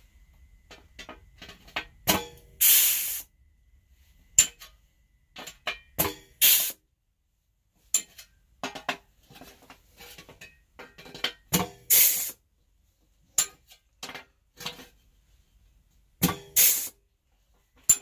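Pneumatic hole punch worked by a compressor, punching holes through a sheet-metal panel. Four strokes: each a sharp clack followed about half a second later by a short hiss of air, with small handling clicks between.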